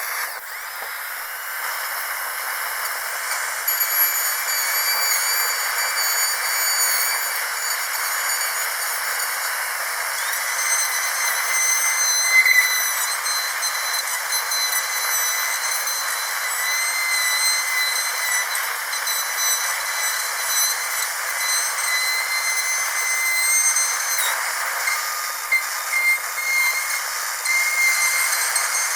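Dental drill whining at a high pitch over a steady hiss, the whine shifting pitch a few times.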